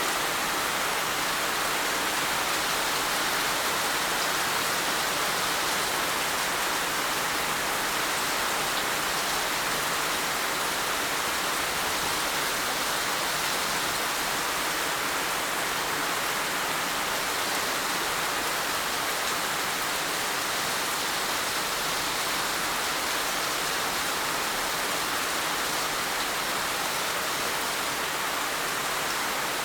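Heavy rain falling, a steady dense hiss with no individual drops standing out.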